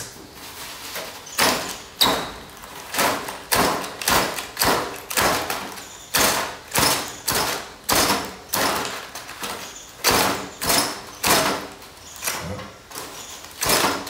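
Ferrocerium fire-starter rod scraped again and again with a metal striker, a little under two strokes a second, the sparks failing to light the tinder.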